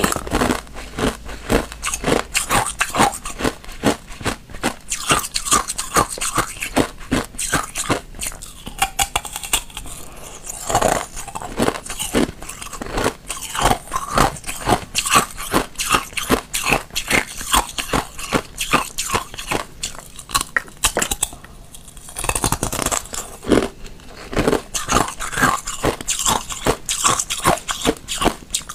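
Thin shells of ice being bitten and chewed: a dense run of sharp, crisp crunches and cracks, with a brief pause about three-quarters of the way through.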